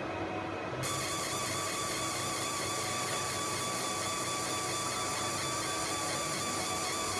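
Fiber laser marking machine: a low hum, then, a bit under a second in, a steady high-pitched hiss with several steady whining tones starts suddenly as the laser begins marking a picture into the lock's coating.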